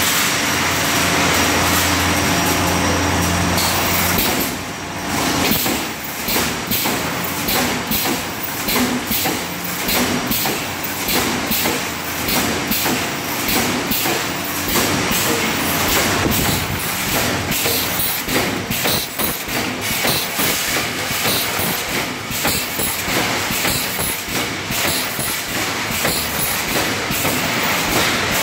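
Automatic reinforcing wire mesh welding machine running and welding mesh. A steady hum for about the first four seconds gives way to a fast, irregular clatter.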